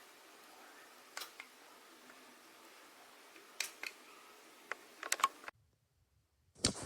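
A few faint, scattered clicks and taps over low hiss, most of them close together near the end, then about a second of dead silence.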